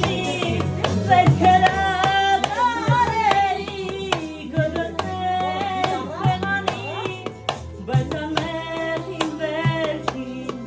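A song playing: a singing voice over regular drum beats and a steady bass line.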